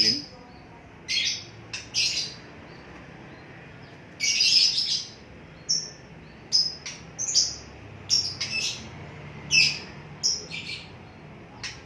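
A small cage bird chirping, a dozen or so short, sharp, high calls at uneven intervals.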